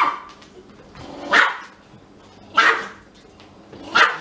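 A Pomeranian barking at a husky: four sharp, high barks, evenly spaced about a second and a half apart.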